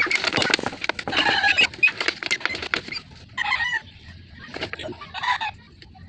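A broiler chicken flapping and struggling as it is pushed head-first into a cut-open plastic water bottle used as a killing cone, a fast flurry of wingbeats and scuffing for about three seconds. It then gives a few short squawks as it is held head-down for slaughter.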